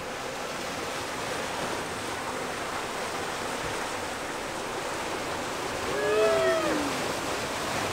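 Steady rush of water past the hull and wake of a sailing yacht running fast in strong wind under a double-reefed mainsail. About six seconds in, a person gives one drawn-out whoop that rises and then falls in pitch.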